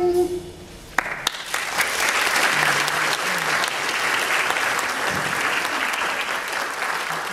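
The last held note of the music stops, and about a second later an audience breaks into applause. The applause goes on steadily and tails off near the end.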